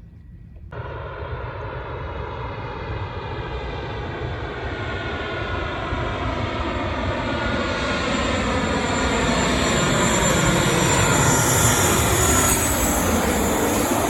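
Fixed-wing aircraft passing low overhead, its engine noise steadily building to a peak, then dropping in pitch as it goes by near the end.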